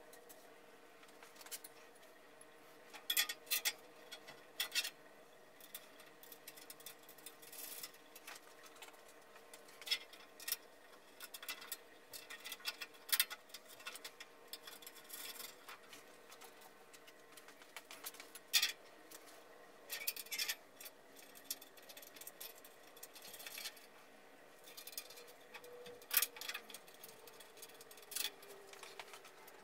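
Scattered sharp clicks and knocks of screws and tools as the steel stand legs are fitted to a bandsaw, over a faint steady hum.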